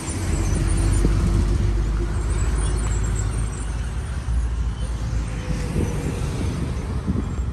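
Road traffic: motor vehicle engine rumble and steady road noise, with a faint engine tone coming and going.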